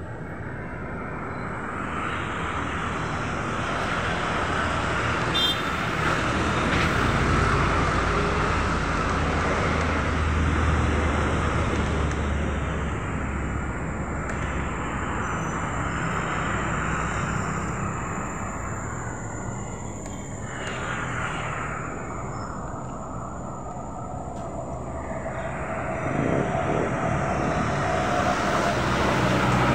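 Steady outdoor background rumble and hiss that slowly swells and fades, like nearby road traffic or wind on the microphone.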